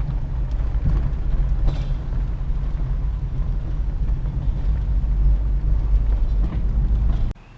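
Low, steady rumble of a vehicle driving, heard from inside the cab; it stops suddenly near the end.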